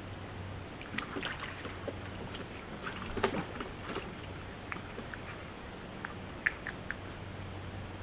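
River otters on a wooden boardwalk making scattered sharp clicks and taps as they scramble about, loudest in a cluster about three seconds in and again in a few quick taps near the end. Under them runs a steady hiss with a low hum.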